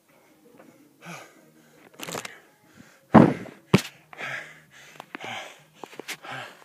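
A man panting hard, catching his breath after an all-out workout, with two loud knocks about three seconds in.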